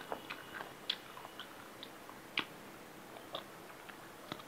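Eating by hand from a steel plate: fingers mixing rice with hilsa-head curry make scattered small clicks and wet smacks, the loudest two about a second in and a little past the middle, and a mouthful goes in near the end.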